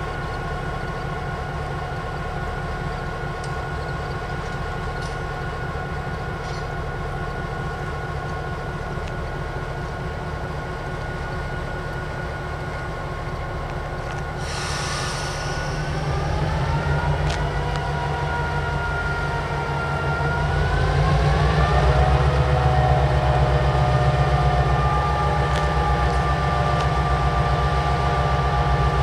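EMD GP7 diesel-electric locomotive idling steadily, a short burst of air hiss about halfway through, then its engine notching up in two steps, pitch and loudness rising, as the locomotive begins to move off.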